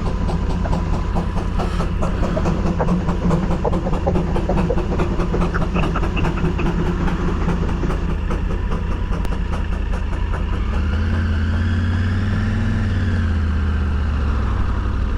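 Motorcycle engine running while being ridden on the road, with road noise. About ten seconds in, the engine note rises and then falls back.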